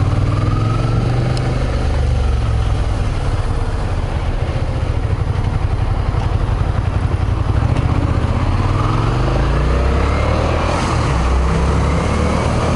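Motorcycle engine running under way, its note rising and falling with the throttle and climbing as it accelerates towards the end.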